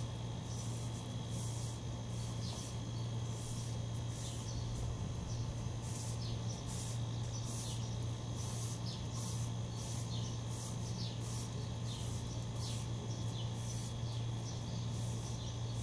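Broom sweeping a paved floor: short bristle swishes repeating irregularly, about one or two a second, over a steady low hum.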